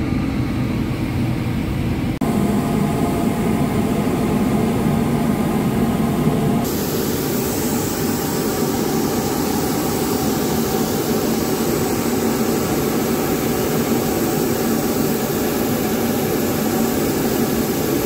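Steady engine drone with a hiss over it. The sound changes abruptly twice, about two seconds in and again near seven seconds, and after the second change the hiss is brighter and fuller.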